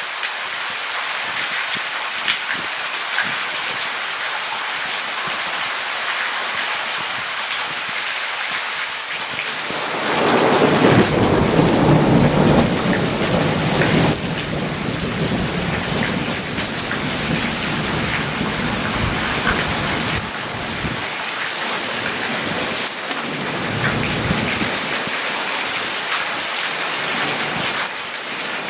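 Steady hiss of heavy rain in a thunderstorm. About a third of the way in, a rumble of thunder swells up, is loudest for a few seconds, then rolls on more softly and fades, with weaker rumbles later.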